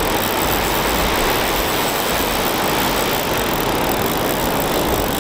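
Steady wind and surf noise: wind rumbling on the microphone over the wash of breaking waves.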